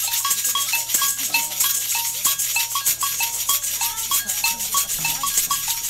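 Samba percussion groove: shakers rattling in a fast, even rhythm, with agogô bells striking a short repeating two-note figure, low then high, over it.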